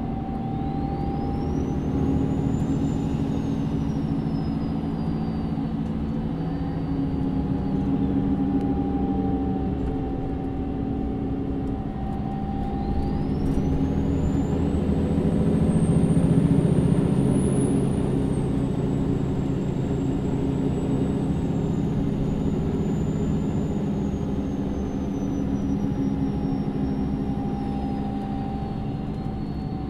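MAN Lion's City city bus (NÜ 323) on the move, heard from inside: engine and drivetrain running steadily. A high whine rises and falls near the start, rises again about a third of the way in, and holds until it falls away near the end. It is loudest around the middle.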